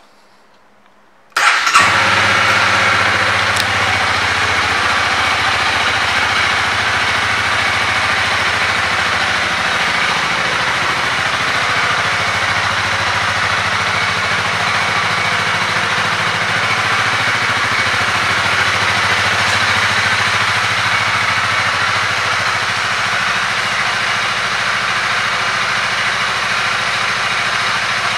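2021 Honda Rebel 300's single-cylinder engine starting about a second in, then idling steadily.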